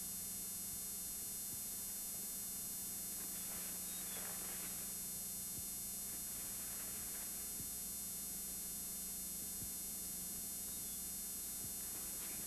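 Steady electrical hum with faint hiss, the background noise of an old off-air tape recording. No clear sound event stands out.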